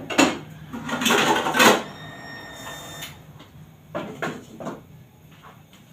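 Dishes and metal kitchenware clattering at a sink: a sharp clank, about a second of loud clattering, a short metallic ring, then a few lighter knocks about four seconds in.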